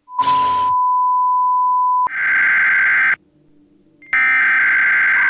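A short burst of static hiss and a steady, pure electronic test tone, held for about two seconds. Then come two harsh, buzzing emergency-broadcast alert data bursts, each about a second long, with a brief silence between them.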